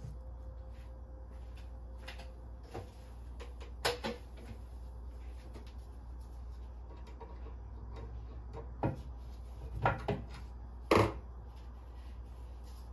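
Scattered knocks and clunks of things being handled inside a wooden kitchen cabinet: a pair about four seconds in, then a cluster of sharper knocks, the loudest near the end. A steady low hum runs underneath.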